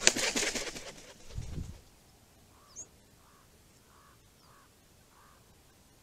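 Wings of a large corvid flapping hard as it takes off from a post: a quick flurry of wingbeats for about a second, then a lower whoosh. After that, five faint soft calls follow at intervals of roughly half a second to a second.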